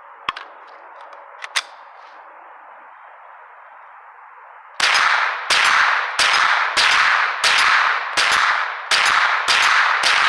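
A steady high hiss with two sharp clicks, then about five seconds in a firearm starts firing rapidly in semi-automatic, about nine shots roughly two-thirds of a second apart, each with a short ringing tail.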